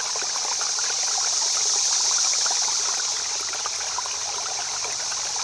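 Running water of a shallow stream, a steady babbling hiss with fine splashing trickles.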